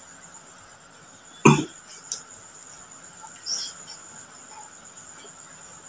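A man coughs once, short and sharp, about a second and a half in while eating with his mouth full. A smaller sound follows about half a second later, and there is a faint mouth noise near the middle, over a steady high-pitched background tone.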